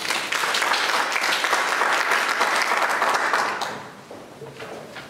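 Audience applauding, dying away after about three and a half seconds.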